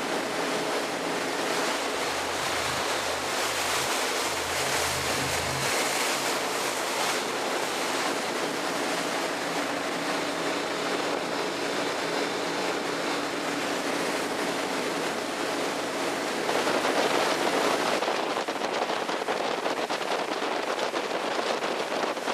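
Steady rush of wind and waves around a fishing boat on open water, with wind buffeting the microphone and a faint steady motor hum under it in the first part. The rush swells about 17 seconds in.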